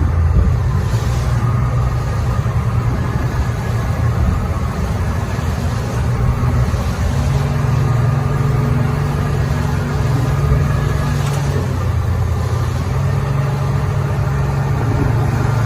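A large engine running steadily, a loud low hum that steps up slightly in pitch about seven seconds in, dips briefly, then rises again.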